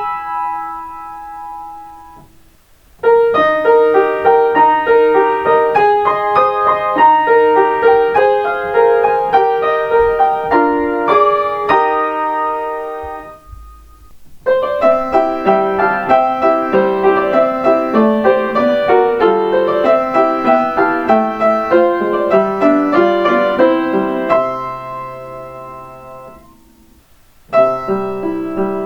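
Piano playing Kintetsu limited express onboard chime melodies as short separate tunes. A chord fades out at the start, then two tunes play through, each ending on a held chord that dies away, and a third tune begins near the end.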